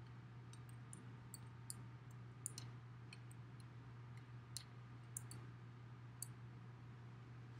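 Faint, irregular sharp clicks and ticks from a small paint roller being rolled through wet gray paint on roofing tar paper, over a steady low hum.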